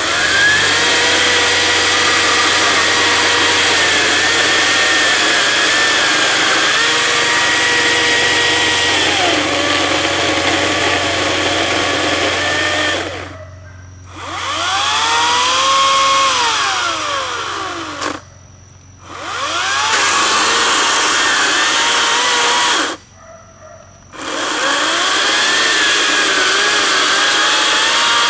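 Echo 58V battery-powered chainsaw cutting into a log: a loud, steady electric whine with the chain running, its pitch sagging and rising as the load changes. It stops suddenly three times, about five seconds apart, and spins back up each time.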